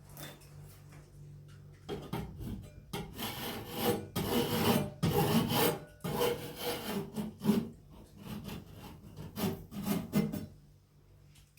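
A decorator's scraper rubbed and scraped in irregular strokes over self-adhesive mesh tape on a ceiling, pressing it down onto the crack. The strokes start about two seconds in and stop shortly before the end.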